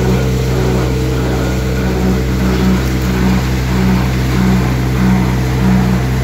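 Tractor's diesel engine running steadily, powering a belt-driven multi-grain thresher, with a hum that swells about every two-thirds of a second.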